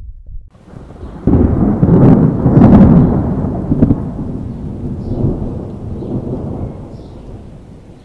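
A thunderclap: a sudden crash a little over a second in, crackling at its peak, then a long rolling rumble that slowly fades away.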